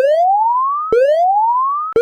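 Electronic alarm tone sweeping up in pitch over about a second, then snapping back down with a click and starting again, about once a second.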